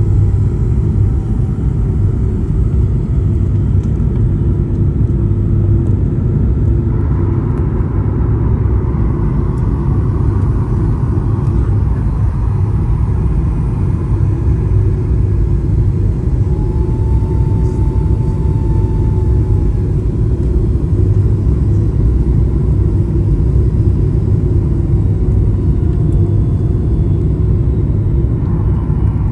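Steady low rumble inside the cabin of a Boeing 737 MAX 9 during the landing phase, with a steady hum running under it.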